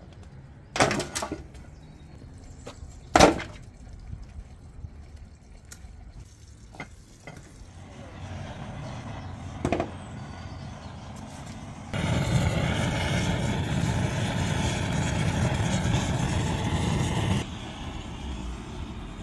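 Steel bowls and basins clanking on concrete, two loud clanks in the first few seconds, then lighter handling knocks. Later a steady rushing noise starts abruptly, runs about five seconds and cuts off suddenly.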